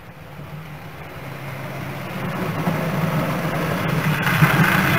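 Model train running on the layout's track, its electric motor humming and wheels rumbling on the rails, growing steadily louder as it approaches.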